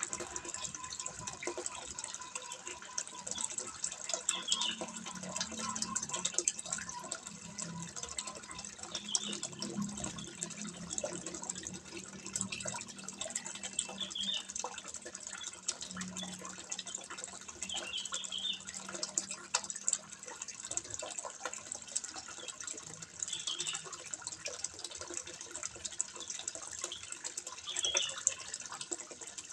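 Water trickling steadily into a fish pond, a continuous patter of small drips and splashes, with a short higher-pitched sound coming back every few seconds.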